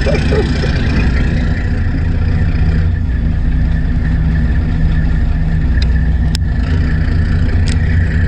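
Fishing boat's engine running steadily with a low hum, with a few sharp clicks in the second half.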